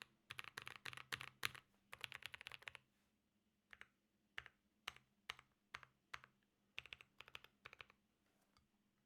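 Typing on a tape-modded GMMK Pro mechanical keyboard with lubed and filmed Boba U4T tactile switches, an FR4 plate and GMK Dolch keycaps. A fast burst of keystrokes for the first few seconds, then slower single keystrokes about two a second, stopping near the end.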